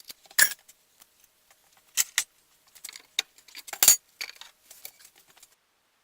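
Metal tools and parts clinking and rattling in a handful of sharp knocks, the loudest about half a second in, twice around two seconds and once near four seconds, with lighter rattles between.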